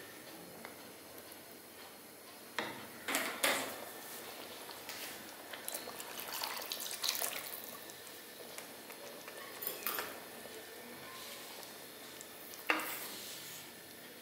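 Spatula stirring a thick, simmering chicken curry in a pan: wet squelching sounds with a few sharp scrapes and knocks of the spatula against the pan, the loudest about three seconds in and again near the end.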